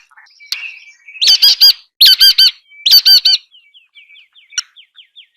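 Nuthatch calling: three loud groups of three or four harsh, nasal notes about a second apart, with a fainter rapid series of thin notes in between and near the end.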